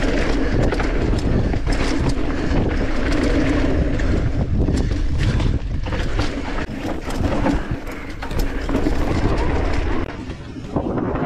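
Mountain bike riding fast down a dirt trail: a steady rush of wind over the microphone and tyre noise on dirt, with frequent rattles and knocks from the bike over rough ground. It eases briefly near the end.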